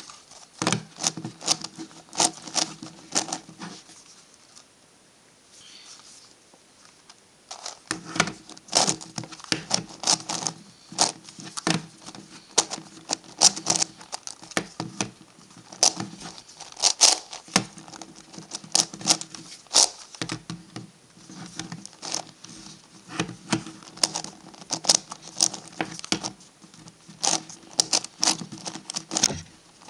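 MF8 Gigaminx puzzle being turned fast by hand: rapid clicking and clacking of plastic pieces as the faces are twisted, with a lull of a few seconds about four seconds in.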